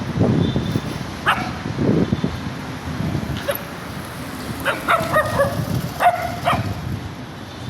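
Small dog giving short, high-pitched yips and barks, a quick cluster of them a little past the middle, with low muffled thuds in between.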